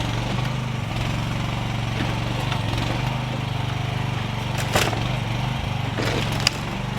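AGT mini excavator's small engine running steadily as it pushes on a fence, with a sharp crack about five seconds in and a second, sharper one near the end as the fence gives way.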